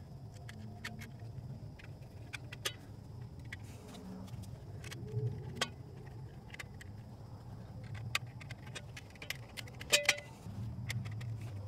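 Scattered small metallic clicks and clinks from stiff 6-gauge wire and a screwdriver against a steel AC disconnect box and its terminal lugs, with a sharp double click about ten seconds in, over a steady low rumble.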